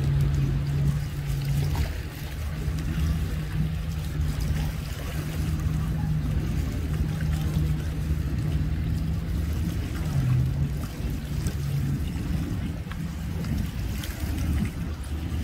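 An engine idling steadily with a low hum, over low wind rumble on the microphone. The hum fades out about three quarters of the way through.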